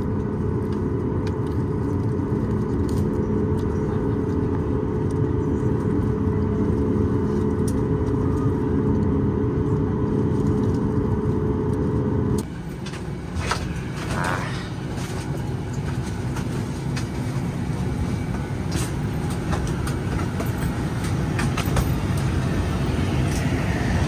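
Cabin noise of a Boeing 737 MAX 8 taxiing: a steady rumble with a low engine hum from its CFM LEAP-1B engines. About halfway through the rumble cuts off abruptly. Quieter cabin noise follows, with scattered clicks and knocks.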